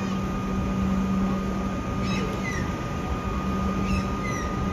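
Steady electric hum with a thin high whine from a stationary electric suburban train standing at the platform. Birds chirp briefly a few times, about two seconds in and again near four seconds.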